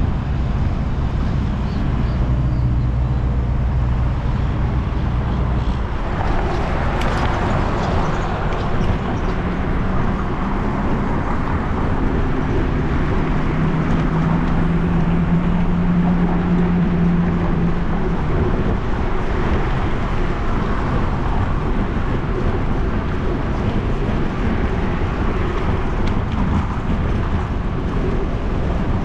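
Road traffic passing on the road beside the cycle path: a steady wash of tyre and engine noise, with a low engine hum in the first few seconds and another vehicle's hum swelling and fading in the middle.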